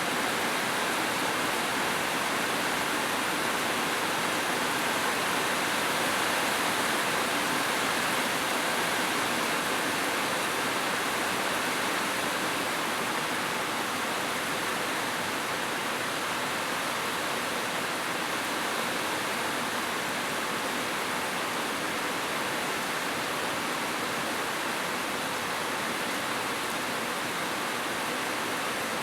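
Steady rain, an even hiss with no single drops or other events standing out.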